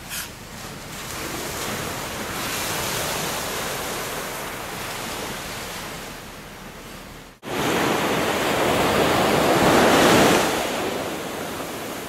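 Ocean surf washing onto a sandy beach as a steady rush. It cuts off for an instant about seven seconds in, then returns louder as a wave swells and eases off.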